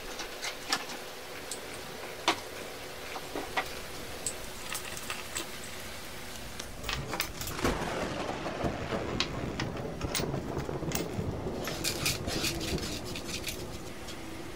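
Gravel and small metal parts clattering on a wooden workbench: scattered sharp clicks at first, then a denser, louder rattle of gravel from about halfway through.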